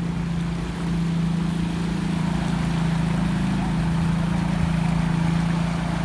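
Steady engine hum at an even pitch over the continuous rush of floodwater, as a motorbike crawls through the flood.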